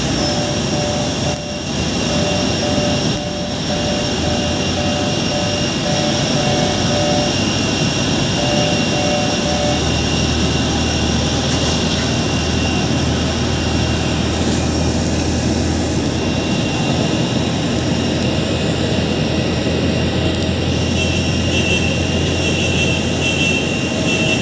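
Steady jet whine and rumble of an IndiGo Airbus A320-family airliner on the apron during pushback by a tug. A repeating two-note tone sounds on and off for the first nine seconds or so, and a deeper hum comes in about ten seconds in.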